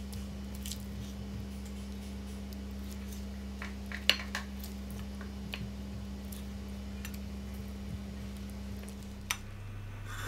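Wooden spatula scraping and tapping against a pan and a ceramic plate as sauced chicken wings are pushed onto the plate, with scattered sharp clicks, the loudest about four seconds in. A steady low hum runs underneath.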